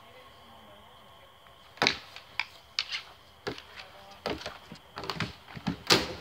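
Sparring swords striking one another and riot shields in a fast exchange. About fifteen sharp knocks come in quick clusters from about two seconds in, and the loudest blows are at the start of the flurry and near the end.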